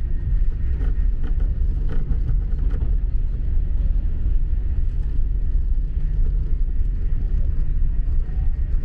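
Steady low rumble inside the cabin of a TGV inOui high-speed train running at about 314 km/h.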